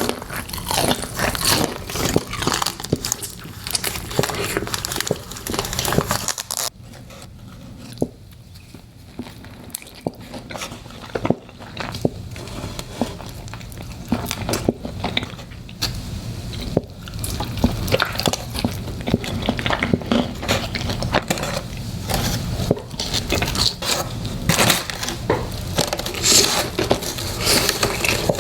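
Close-miked eating of chicken wings: biting, chewing and wet crackly mouth sounds in a dense, irregular run, quieter for a few seconds about a quarter of the way through.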